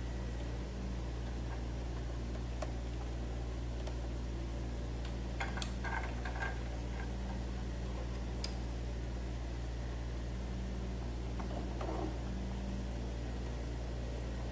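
Electric stand fan running with a steady hum, with a few faint rustles of cloth being handled.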